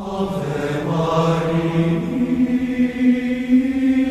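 Intro ident music: a drawn-out, chant-like sung or synthesized tone, held on one low note and then stepping up to a higher held note about two seconds in.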